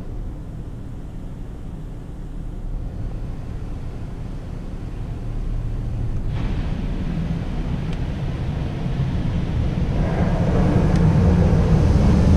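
Coleman Water Wizard 2.0 touchless car wash heard from inside the car: a steady low rumble, then spray hiss rising about six seconds in and growing louder near the end as water sheets over the windshield.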